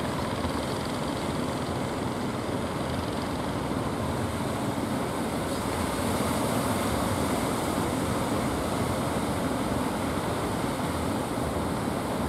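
Waves breaking and water rushing, with a steady low engine drone underneath.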